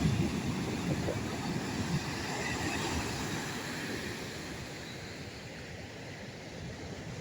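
Surf breaking and washing up a beach, with wind rumbling on the microphone; louder at the start and easing off.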